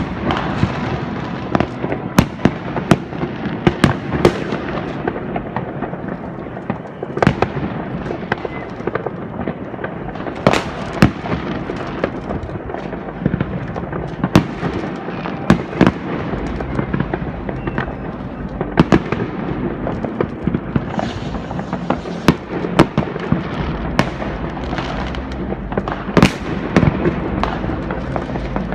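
New Year's Eve fireworks and firecrackers going off: a continuous crackle with many sharp bangs at irregular intervals, several close together at times.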